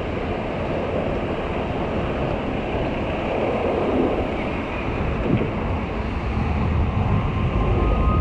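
Strong wind buffeting the microphone as a steady, uneven low rumble, over the wash of small waves on a sandy beach.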